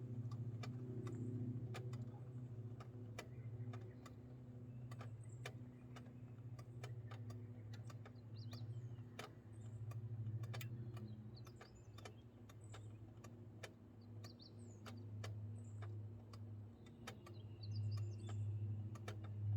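Vespa GTS 300 Super Tech's single-cylinder four-stroke engine idling steadily with a sharp ticking at roughly one to two ticks a second: an abnormal noise from the scooter.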